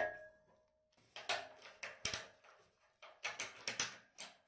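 Aluminium mast tube ringing with a clear, fading tone for about a second after a sharp metallic snap, typical of a blind rivet setting in the splice sleeve. Then a run of quick metal clicks and rattles as the ratchet-strap buckles holding the mast are worked.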